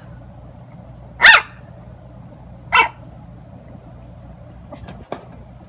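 Bulldog puppy barking: short, high barks about a second and a half apart, each dropping in pitch. A couple of faint clicks come near the end.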